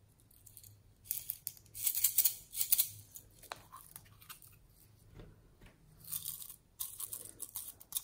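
Small hinged plastic container handled and shaken, with loose plastic sequins rattling inside in short bursts, and a click as its lid is flipped open.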